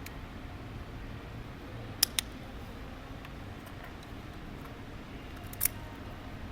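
Plastic Nissan smart key fob case being snapped back together: two quick clicks about two seconds in, then a single louder click near the end.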